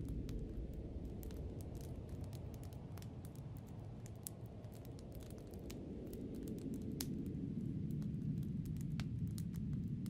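Snowstorm wind rushing low and steady; it eases about four seconds in and builds again toward the end. Scattered sharp crackling ticks run through it.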